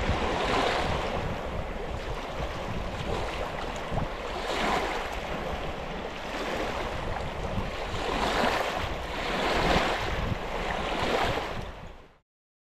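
Rushing wind and water noise, with wind buffeting the microphone; it swells and eases every few seconds and cuts off abruptly near the end.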